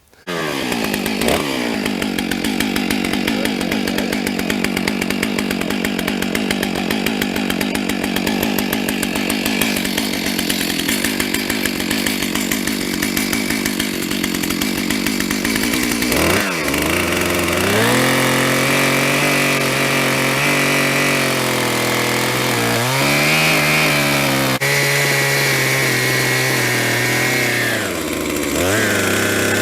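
Stihl MS 661 two-stroke chainsaw cutting into a stump at full throttle, the engine pulled down under load for about the first half. After a brief dip it runs at higher, wavering revs, with a short drop in pitch near the end.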